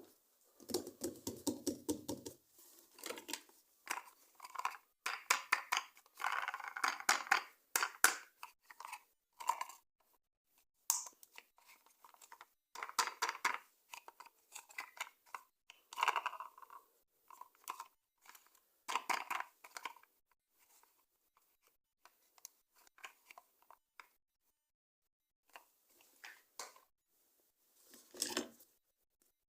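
Plastic and cardboard toy packaging being handled and torn open: irregular bursts of crinkling and crackling with short pauses between them. The bursts come thickest over the first ten seconds and thin out after that, with a fuller, heavier rustle near the end.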